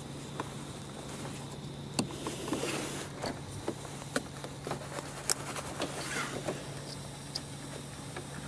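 Plastic plug-in wiring connectors of an LED grille light kit being handled and pushed together: scattered sharp clicks and rustling of wires, over a steady low hum.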